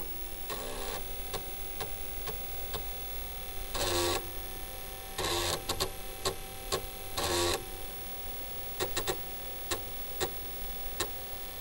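Mechanical clicks and three short buzzing runs over a steady electrical hum, like the sounds of old computer hardware or a printer at work.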